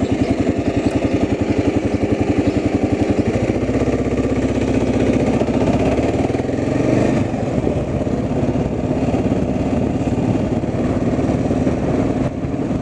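Motor vehicle engine running steadily while driving. A fast, regular engine pulsing in the first few seconds settles into a smoother drone.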